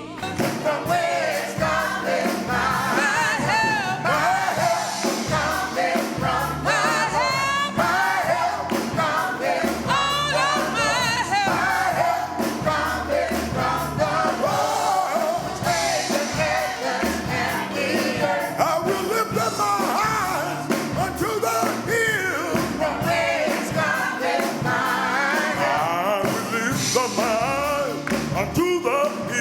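Gospel music: singers, with a choir, over a band accompaniment.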